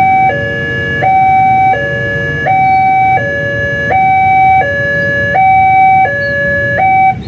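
Emergency vehicle's two-tone siren sounding a steady hi-lo alternation, each note held about three-quarters of a second, over a low rumble of traffic. It cuts off abruptly near the end.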